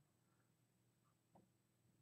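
Near silence: room tone, with one faint, brief click a little past the middle.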